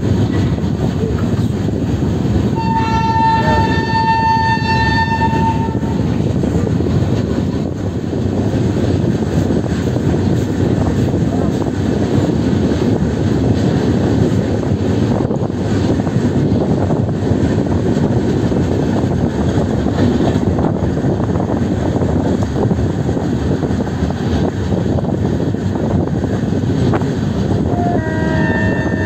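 Passenger train running at speed, heard from on board as a steady loud rumble of wheels and wind. A locomotive horn sounds for about three seconds a few seconds in, and another horn blast starts near the end.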